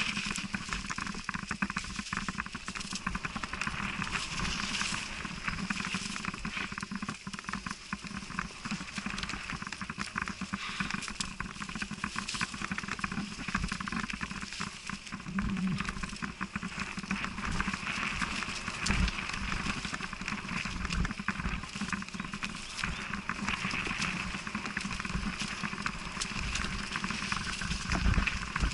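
Mountain bike riding downhill on a leaf-covered dirt trail: a continuous rustle and crunch of tyres over leaves and soil, with steady rattling and knocks from the bike over bumps and a heavier thump near the end.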